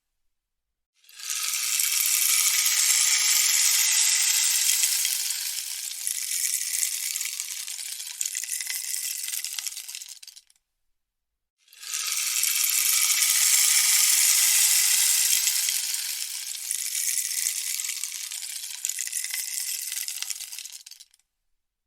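Rainstick turned over twice: each time its pellets trickle down inside it in a long, dense rattling hiss lasting about nine seconds, then die away. A second of silence falls between the two runs.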